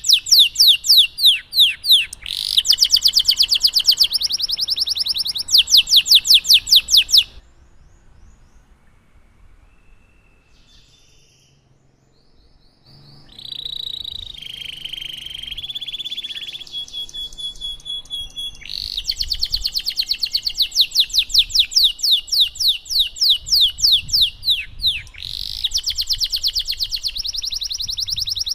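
Domestic canary singing long rolling trills of rapidly repeated high notes. The song breaks off after about seven seconds for a quiet stretch, then resumes with varied warbling phrases and returns to long fast trills.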